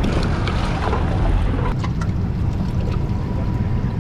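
Steady low rumble of a boat at sea: a bank of four Yamaha 300 outboards idling, with wind buffeting the microphone.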